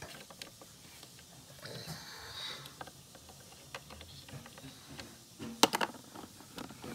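Small plastic doll accessories clicking and tapping against a plastic dollhouse's shelves as they are set in place, with one sharper click about five and a half seconds in.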